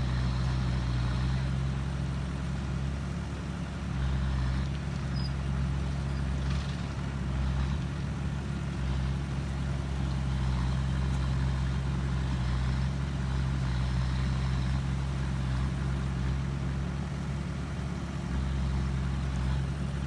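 Heavy truck or earthmover engine running steadily with a low, even note that rises and falls slightly in loudness.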